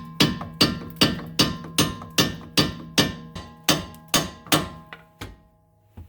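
A hammer striking a steel through bolt, driving it through the rear strut's lower mount and steering knuckle: a steady series of about a dozen ringing metal-on-metal blows, some two and a half a second, stopping about five seconds in.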